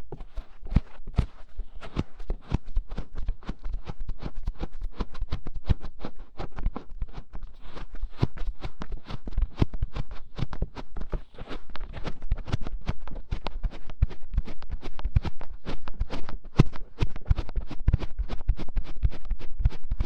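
Fingers scratching, tapping and cupping over a microphone's ears in quick, uneven strokes, with close, muffled thumps.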